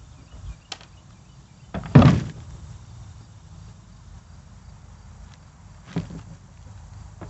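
A loud thump about two seconds in, a lighter knock near six seconds and a faint click before the first, over low background noise.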